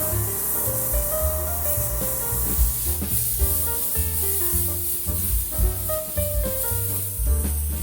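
Background music with a melody of shifting notes over a steady, repeating bass line.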